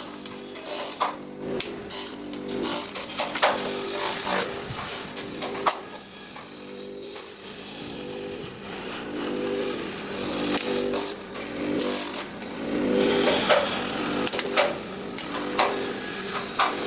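A small electric power tool running steadily while small wooden pieces are sanded on it, with irregular bursts of rasping and sharp knocks as the wood touches the tool and is handled.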